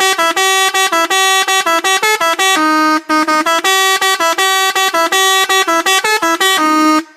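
Indonesian bus 'telolet' horn, a set of switched air horns, playing a fast tune of short loud notes on a few fixed pitches, with a longer low note just before it cuts off.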